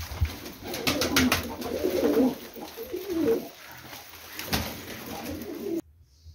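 Pigeon cooing in wavering low calls, with scattered sharp clicks and knocks around it; the sound cuts off suddenly near the end.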